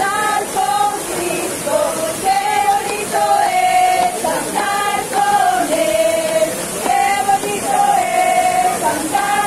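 A group of men's and women's voices singing a hymn together in held, melodic notes, over the steady rush of the waterfall.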